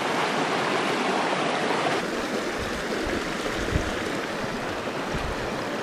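Small, shallow mountain creek rushing over rocks in a riffle: a steady, fairly loud rush of water. About two seconds in the sound shifts slightly, and a few low knocks come in underneath.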